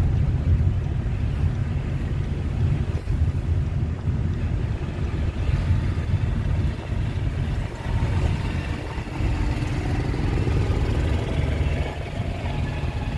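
Suzuki car driving along a road, heard from inside the cabin: a steady low rumble of engine and tyre noise.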